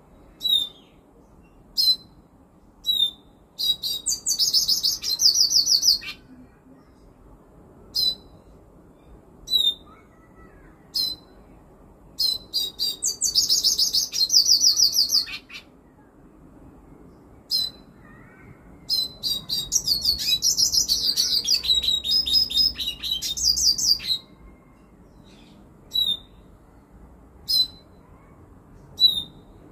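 Caged male Bolivian siskin singing: short single high call notes every second or two, broken three times by fast twittering song phrases a few seconds long.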